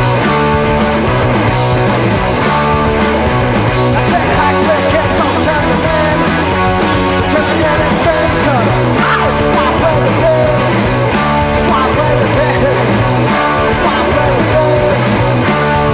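Garage rock band playing with electric guitar, bass and drums to a steady driving beat, loud throughout.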